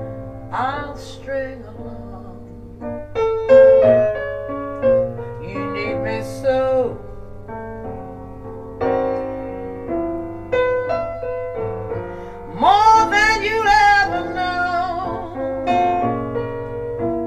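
Vinyl record playing through a Shure M3D phono cartridge fitted with a modified Victor replacement stylus: a slow vocal ballad with piano accompaniment. A woman's singing voice comes in strongly with vibrato about twelve seconds in.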